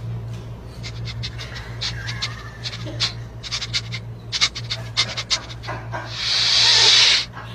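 French bulldog sniffing and snuffling with quick, short, noisy breaths as it pushes its nose in, over a steady low hum. About six seconds in comes one loud hissing burst lasting about a second.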